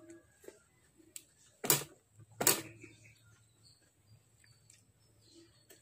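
Close-up eating sounds of a person chewing a handful of rice and fish, with faint scattered clicks of lip smacks. Two loud short sounds come about a second apart near the middle.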